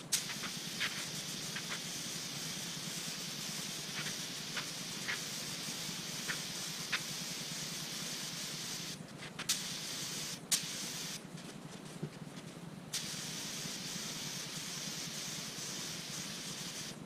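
Air-powered paint spray gun hissing as it sprays a car bumper cover in long passes. The spray stops about nine seconds in, runs again briefly, and stops again for a couple of seconds before resuming. A few light clicks and a steady low hum sit underneath.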